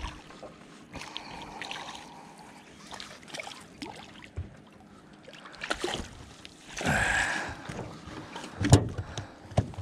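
A hooked bream splashing and thrashing at the surface beside a small aluminium boat, with scattered knocks and one sharp thump near the end.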